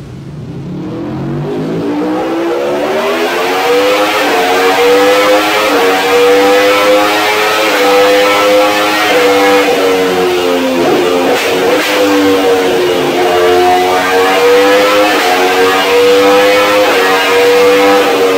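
Aprilia sportbike engine on a motorcycle dynamometer, breathing through an Akrapovič exhaust at wide-open throttle under load. Its pitch climbs steeply over the first few seconds, then holds high at near top speed with small dips and recoveries.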